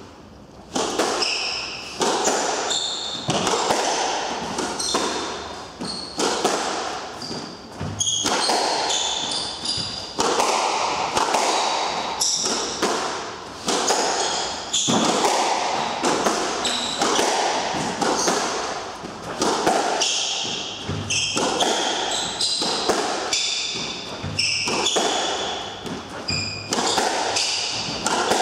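Squash rally: the ball struck by the rackets and smacking off the court walls many times, each hit ringing briefly in the court, with shoes squeaking on the wooden floor between the hits.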